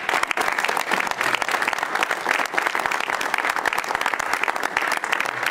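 A roomful of people applauding, a dense, steady clapping.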